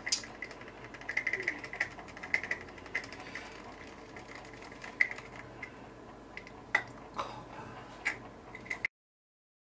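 Scattered light clicks and taps of a plastic pipette and small plastic cup handled in gloved hands while drizzling mica. The sound cuts out abruptly near the end.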